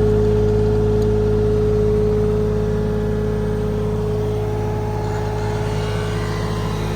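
Diesel engine of heavy machinery running steadily, a steady whine over a low hum, easing off slightly a couple of seconds in.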